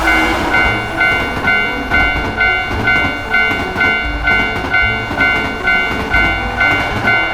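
Japanese railroad-crossing warning bell ringing about twice a second, with the rumble of a train passing through the crossing under it.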